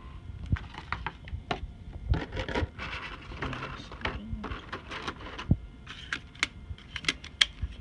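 Irregular clicks, taps and rustling of a clear plastic packaging tray and a die-cast model airliner being handled on a wooden desk.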